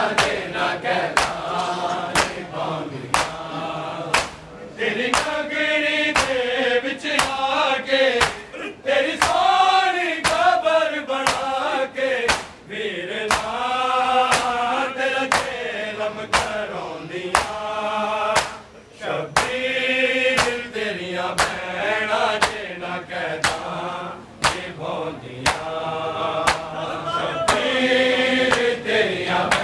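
Male voices chanting a Punjabi noha, a Shia lament. Mourners' open hands strike bare chests in matam, a steady beat of sharp slaps at about one and a half a second.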